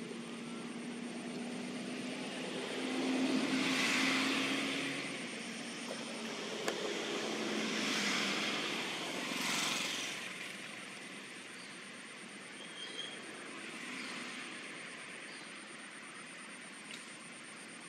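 Distant engine drone with a steady low hum. It swells and fades three times in the first ten seconds, then settles into a quieter steady background.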